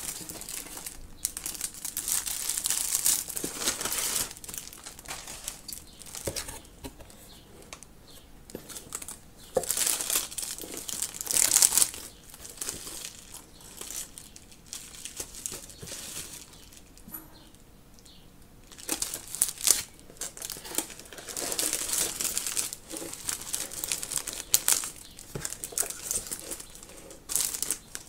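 Plastic packaging crinkling in irregular bursts as plastic-sleeved notebooks and a bubble-wrap mailer are handled and lifted out of a cardboard box.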